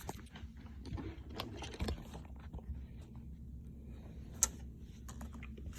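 Faint scattered clicks and taps of trading cards being handled, with one sharper click about four and a half seconds in.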